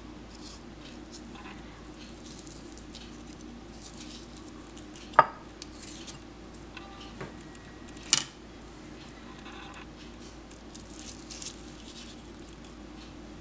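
Quiet kitchen sounds of a knife slicing avocado in the hand and a metal spoon scooping the pieces into a ceramic bowl, with two sharp clinks of metal on the bowl about five and eight seconds in, over a faint steady hum.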